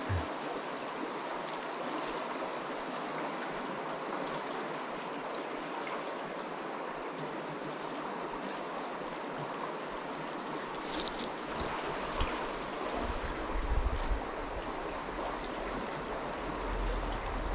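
Steady rushing of a shallow flowing stream, with a few low rumbles of wind on the microphone in the last few seconds.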